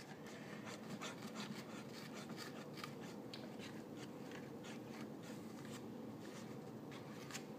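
Fork stirring glue and water on a paper plate: faint, irregular scraping and small ticks as it rubs against the plate.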